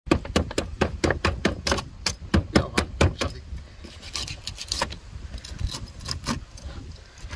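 Kitchen knife cutting and scraping through the bony armour plates of a pleco on a wooden cutting board: a quick run of sharp crunching clicks, about five or six a second for the first three seconds, then sparser scrapes and clicks.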